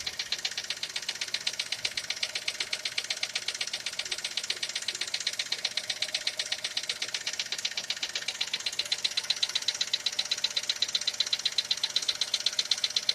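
Skoda Fabia engine running with a fast, even knocking tick that keeps time with the engine, a knock whose cause is not yet found.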